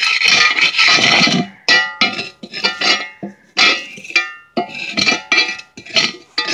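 An old steel file scraping crusty, flaky burnt-oil residue out of a cast iron frying pan, first in one continuous rasp, then in a quick run of knocks and scrapes, with the pan ringing after each strike.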